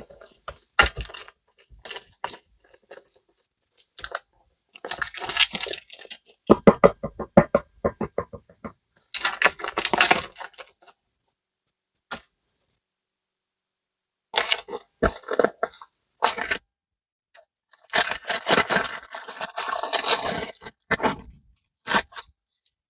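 Plastic packaging crinkling and tearing in several bursts, with dead-silent gaps between them, as packs of super clay are unboxed.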